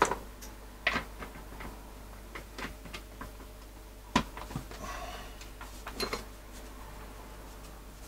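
The orange plastic housing half of a Fein MultiMaster multitool being handled and fitted onto its body, giving a few sharp plastic clicks and knocks with some rustling. The loudest click comes about four seconds in.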